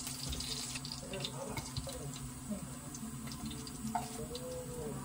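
Faint crackling sizzle from a hot frying pan and freshly fried makchang and Spam, with light ticks as pieces are set on a ceramic plate, over a steady low hum.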